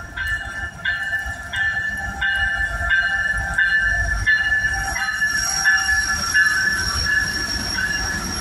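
Norfolk Southern diesel freight train passing close by, a low rumble throughout. A ringing tone repeats about every two-thirds of a second through the first half, and a high steady squeal comes in about five seconds in.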